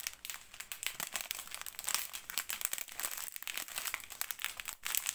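Strip of clear plastic packets of diamond-painting drills crinkling as it is handled and drawn along, a dense, continuous run of crackles.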